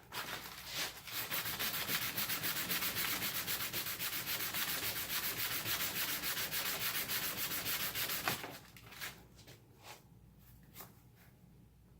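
Sandpaper rubbed back and forth by hand over the underside of a chromatic harmonica slider, in quick, even strokes. The sanding stops about eight seconds in, followed by a few faint rubs.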